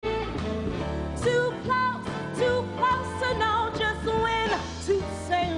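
A woman singing long, wavering held notes over a live band accompaniment.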